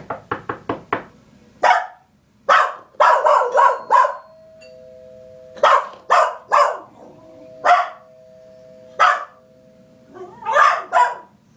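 Dog barking repeatedly in short, sharp barks, while a recorded two-tone doorbell chime sounds twice, its notes held for about a second each, around four and again around seven seconds in.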